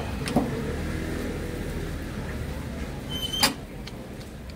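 Street background noise: a low rumble that eases off about two seconds in, with a short click under half a second in and a sharper click with a brief high tone a little after three seconds.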